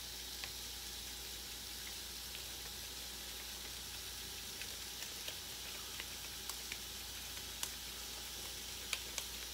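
Ground chicken patty sizzling faintly on an open George Foreman electric grill: a steady hiss with scattered small pops and crackles, more of them in the second half.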